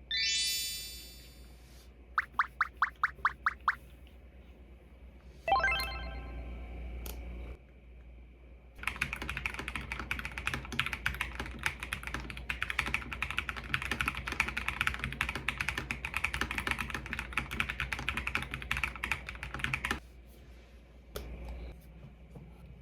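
Typing on a mechanical keyboard: a dense, steady run of key clicks lasting about eleven seconds in the second half. Before it come short electronic tones: a rising chime, a quick series of eight beeps, and a pitched swoop.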